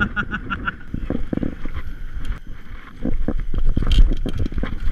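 Wind buffeting the microphone of a camera on a moving mountain bike, mixed with the bike rattling and jolting over the ground, with a sharp knock about four seconds in.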